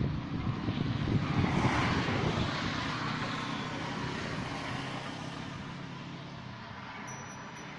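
Farmtrac tractor's diesel engine running steadily, with a swell of noise about two seconds in; it grows quieter through the second half.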